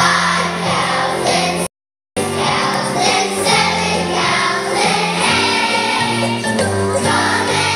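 A large choir of young children singing together over instrumental accompaniment. The sound cuts out completely for about half a second near two seconds in, then resumes.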